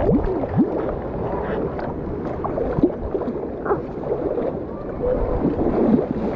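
Pool water churning and gurgling right against the camera's microphone at the water's surface, with many short bubbling blips.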